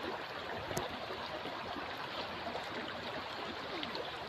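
Flowing stream water, a steady rush with small gurgles, and a single sharp click just under a second in.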